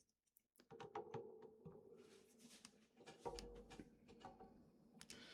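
Near silence, broken by a few faint clicks of plastic LEGO bricks being handled and pressed together.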